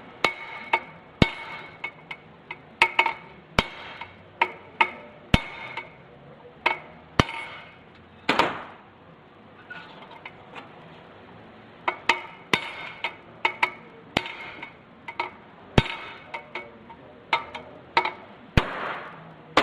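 A hammer striking a large steel drift punch to knock a part out of a Tremec TKO 600 transmission housing: repeated sharp, ringing metallic blows at an uneven pace, with a short lull about halfway.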